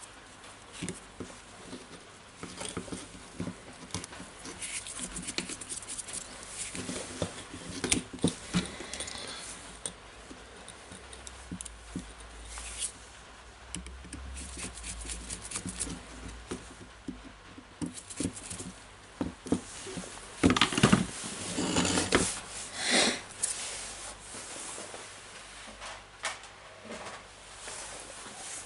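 Small clicks, scrapes and rustles of gloved hands and a screwdriver fitting a replacement motor into a cordless drill's plastic housing, with a louder cluster of knocks and scrapes about three quarters of the way through.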